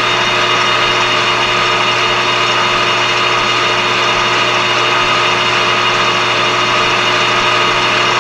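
Metal lathe running steadily, with a steady hum and several steady whining tones, while its tool takes a facing cut across a metal plate.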